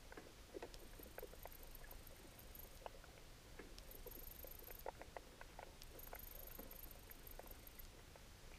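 Faint underwater ambience: scattered small irregular clicks and crackles, with a faint high chirping that comes and goes every second or two.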